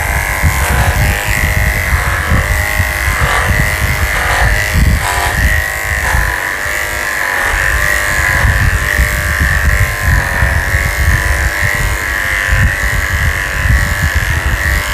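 Electric dog-grooming clippers with a 7 blade running steadily as they shave a schnauzer's coat: a constant high whine with a low, uneven rumble underneath.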